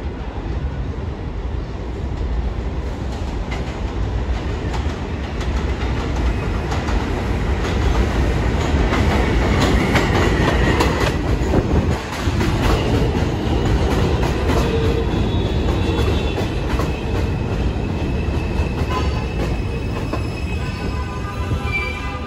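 R142 subway train running into the station, its wheels clattering and squealing on the rails. The sound builds to its loudest about halfway through. Near the end a stepped electronic whine from the traction motors comes in as the train brakes.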